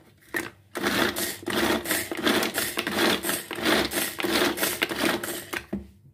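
Manual pull-cord food chopper whirring in quick repeated pulls, its blades spinning through onion, garlic, fresh herbs and walnuts to grind a green chutney. It stops just before the end.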